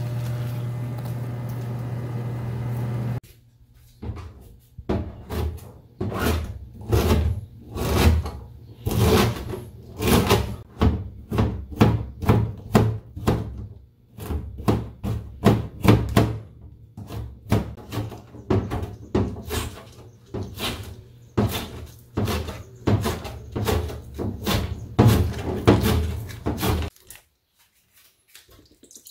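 A kitchen knife chopping a cucumber into thin strips on a plastic cutting board: a long series of sharp knocks, roughly two a second. It opens with about three seconds of a steady low hum over a pot of boiling water.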